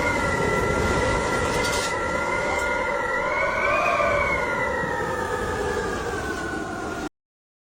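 Howling wind: a rushing noise with several whistling tones over it that swell and rise slightly about halfway through, then ease down. It cuts off suddenly near the end.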